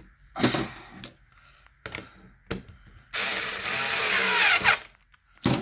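Cordless screwdriver running for about a second and a half, its pitch shifting, as it tightens the fixing screw of a uPVC window handle. Short knocks and clicks of handling come before it, and a sharp knock comes near the end.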